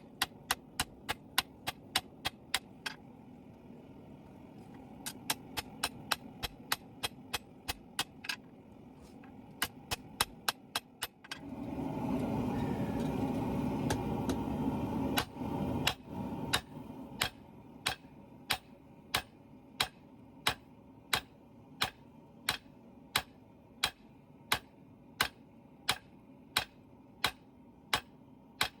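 Hand hammer blows on hot steel over an anvil, an even rhythm of about three sharp strikes a second with a couple of short pauses. About twelve seconds in, a loud rushing noise comes in for about five seconds while the strikes continue.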